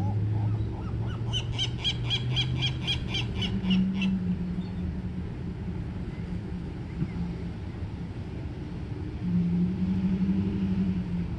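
Seagull calling: a few lower notes, then a quick run of about a dozen sharp, evenly spaced cries at about four a second that stops about four seconds in. A low steady hum runs underneath and swells near the end.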